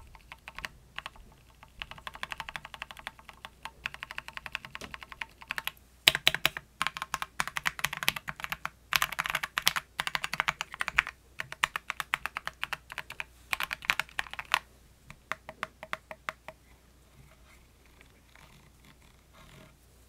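Typing on a Keychron Q1 Max mechanical keyboard with red linear switches. Rapid runs of key clicks come in bursts with short pauses, then thin out to a few light taps over the last several seconds.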